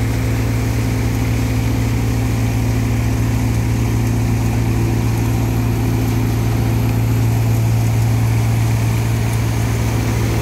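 Tractor-powered threshing machine running steadily while threshing sunflower heads, the tractor engine and the thresher's drum and fan making one even drone with a strong low hum.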